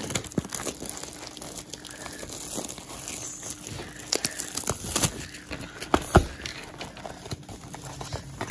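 Plastic shrink-wrap being torn and crinkled off a cardboard trading-card box, with sharp clicks and knocks as the box is handled and tipped over. The loudest knock comes about six seconds in.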